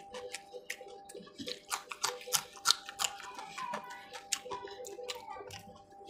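Close-miked wet chewing and mouth clicks of someone eating spicy chicken liver fry by hand: an irregular run of short clicks and smacks.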